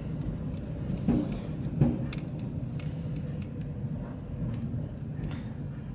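Car cabin noise: a steady low rumble of engine and road while driving, with scattered faint clicks and two short knocks about a second and two seconds in.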